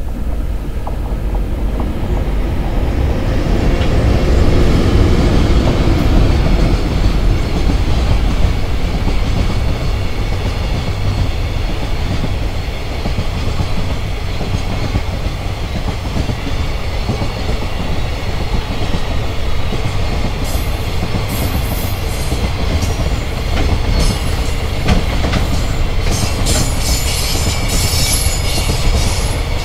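JR Freight EH500 electric locomotive arriving with a long container freight train. The flat wagons roll past in a steady heavy rumble with the clickety-clack of wheels over rail joints. In the last third, sharp high-pitched metallic squeaks and clicks from the wheels join in.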